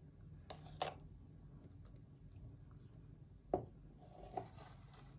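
Faint scrapes and soft squishes of a spatula scooping thick whipped pastry cream out of a plastic blender cup and dropping it onto a sponge cake layer, a few brief strokes.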